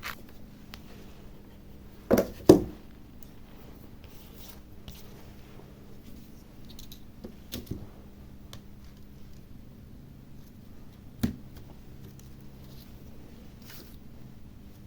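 Small parts being handled on a workbench: light clicks and taps, with two sharp knocks about two seconds in and another single knock about eleven seconds in.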